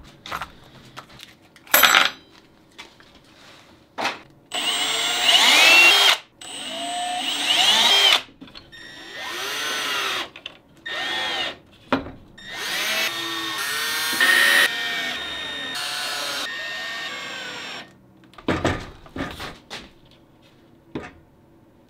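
Cordless drill driving screws through steel corner braces into pallet wood, in a series of short runs whose motor whine rises and falls in pitch as the trigger is squeezed and let off. A few knocks of wood being handled follow near the end.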